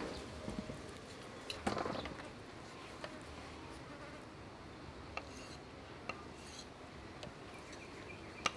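Small kitchen knife slicing through soft pig blood curd and tapping on a wooden chopping block: scattered sharp clicks, about one a second, with a brief cluster about two seconds in. A faint steady insect buzz sits underneath.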